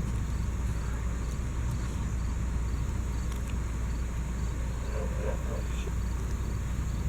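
Steady low hum with an even background hiss, and a faint brief child's vocal sound about five seconds in.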